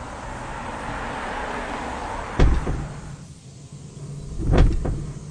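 Cinematic sound effects: a swelling whoosh, then a deep boom about two and a half seconds in and a heavier one near the end, over a low steady drone.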